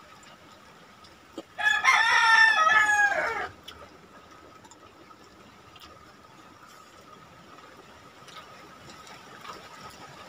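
A rooster crowing once, a single call of about two seconds beginning about one and a half seconds in and dropping in pitch at its end. Faint small clicks of eating by hand around it.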